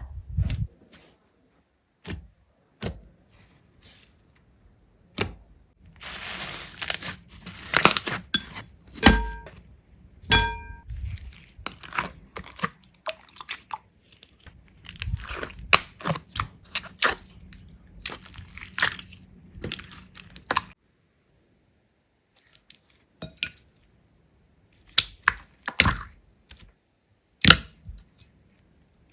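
Slime being squeezed and pressed by hand, giving irregular sticky clicks, crackles and pops, with a denser crackling stretch early on and a couple of short pauses.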